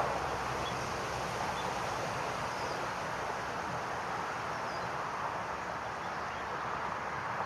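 Steady outdoor wind noise with rustling, and a few faint, short high chirps scattered through it.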